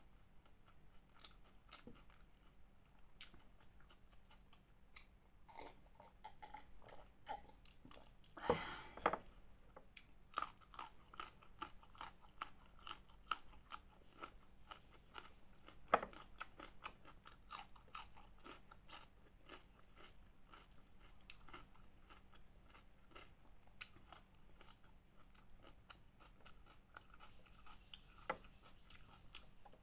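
Close-miked chewing and crisp crunching of a meal of fried fish and raw vegetables eaten by hand, with the crunches coming thickest from about ten to nineteen seconds in and one longer, louder noise just before.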